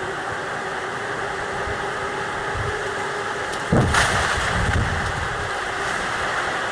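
Strong wind blowing steadily, with a sudden loud crash a little under four seconds in that fades over about a second.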